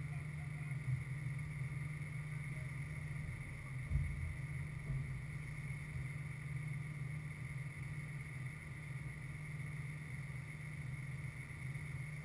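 Steady low rumble with a constant faint high whine, and a single dull thump about four seconds in.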